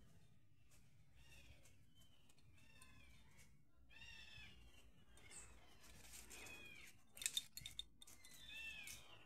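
Faint bird calls: short, arching cries repeated every second or so, with stronger ones about four, six and a half and eight and a half seconds in. A quick run of sharp clicks about seven seconds in is the loudest sound.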